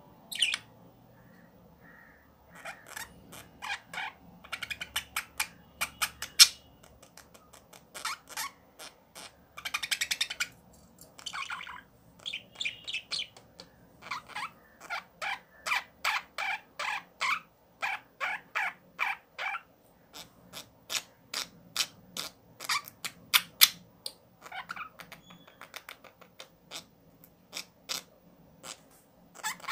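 Ballpoint pen scratching and squeaking on paper as cursive letters are written: quick runs of short strokes, broken by brief pauses between letters.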